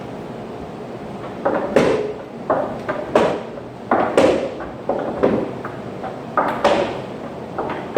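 Repeated dull thuds, often in close pairs, about one pair a second, starting about a second and a half in over a steady background hiss.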